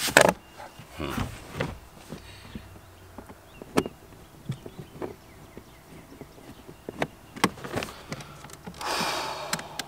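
Scattered clicks and knocks of a bass boat seat and its mounting hardware being handled, with a rasping scrape about a second long near the end.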